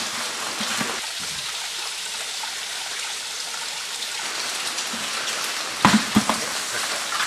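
Steady patter of falling water, with a short cluster of dull knocks about six seconds in.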